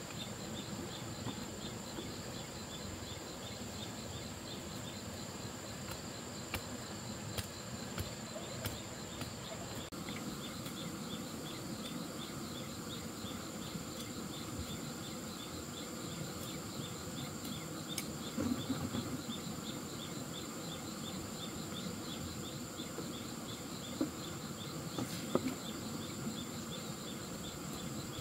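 Insects droning and chirping: a steady high-pitched whine under a fast, regular train of chirps. A few short soft knocks come in the second half.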